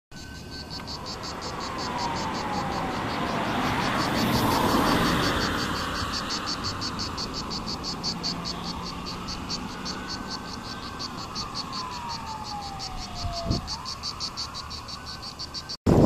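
Insects chirping in an even, fast pulse of about four to five chirps a second, over a siren that slowly wails down and up in pitch. A rushing noise swells and fades around four to five seconds in.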